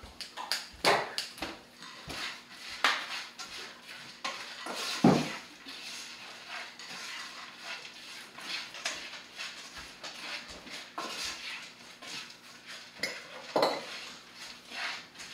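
Dishes and cutlery clattering as they are handled on a kitchen counter: scattered knocks and clinks, the loudest about five seconds in.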